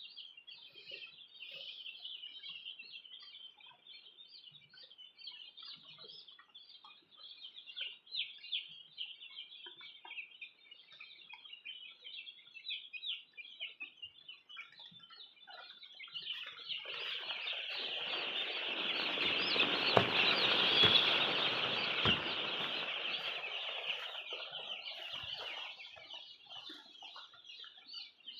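A crowd of young poultry chicks peeping continuously in high, rapid chirps. Past the middle, a louder rushing noise swells up and dies away again, with a couple of knocks near its peak.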